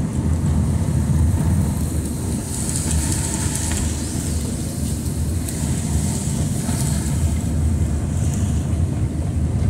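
Car driving on a wet street, heard from inside the cabin: a steady low engine and road rumble with tyre hiss on wet asphalt that swells a few times.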